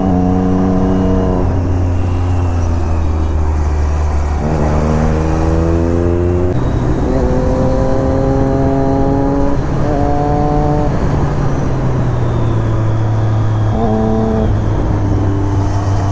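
Triumph Daytona 675's inline three-cylinder engine under way, its revs climbing and then stepping to a new pitch several times as it changes gear, over a steady rush of wind noise.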